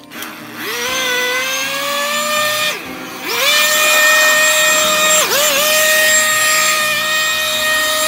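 Handheld gasoline leaf blower revving up from a low speed. It eases off and climbs again about three seconds in, then runs at full throttle as a steady high-pitched whine.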